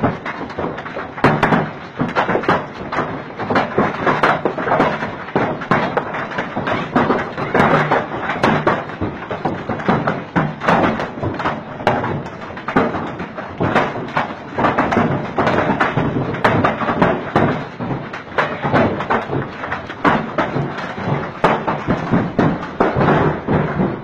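Hailstones the size of chicken eggs pelting down in strong wind: a dense, irregular hammering of hard thuds and taps that does not let up.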